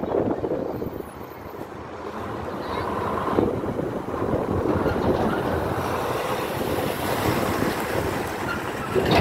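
Road vehicle noise: a steady rush of moving traffic, growing louder about two seconds in and then holding steady.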